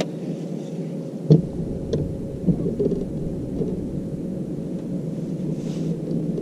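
Muffled, steady low rumble on a bass boat's deck, picked up by a bow-mounted camera. A deeper rumble comes in about a second in, and there are a few light knocks.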